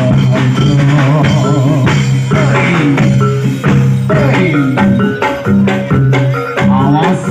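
Loud live reog and jaran dor band music: drums beating densely over steady held low tones, with a melody above that wavers and slides in pitch.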